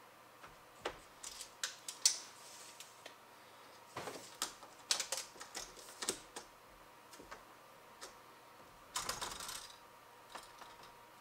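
Scattered light clicks and taps in irregular clusters from hand work on the camper roof around the freshly drilled wire hole, with a short scraping rush near the end, as the drilling mess is cleaned up.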